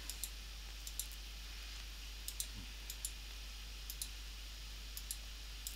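Computer mouse clicking: short, sharp clicks at irregular intervals, roughly one or two a second, over a faint steady low hum.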